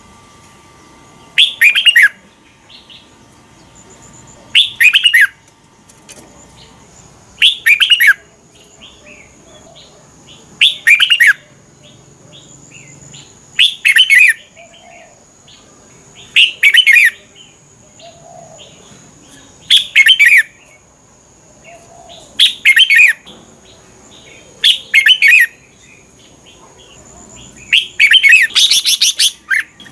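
Red-whiskered bulbul singing: short, bright warbled phrases repeated about every three seconds, about ten in all, with a longer, denser burst of song near the end.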